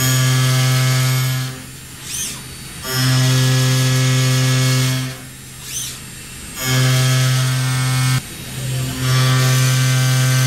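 CNC mill-turn machine's milling cutter cutting a steel shaft in four passes, each a steady buzzing tone lasting about one and a half to two seconds, with short pauses between them that hold faint high whistles.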